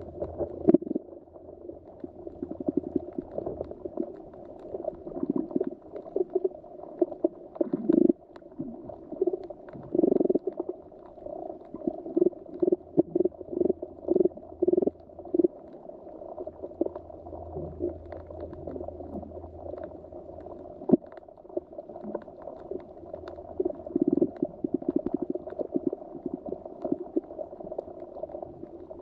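Muffled underwater ambience with irregular bursts of bubbling and gurgling, some stretches busier than others.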